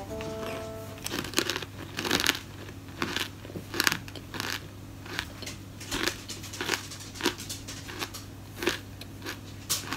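Chewing crunchy dried shiitake mushroom crisps: irregular dry crunches, about two a second, with the loudest bites around two and four seconds in.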